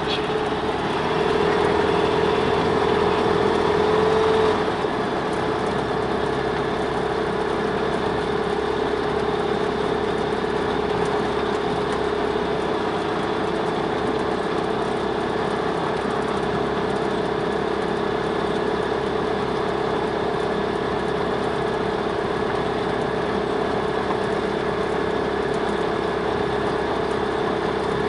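Light aircraft's piston engine and propeller droning steadily, heard inside the cabin; it runs a little louder for a few seconds near the start, then settles to an even drone.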